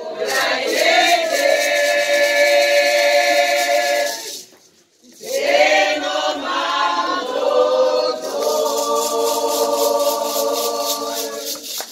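A group of women singing together in long held notes: two phrases, with a short break about four seconds in.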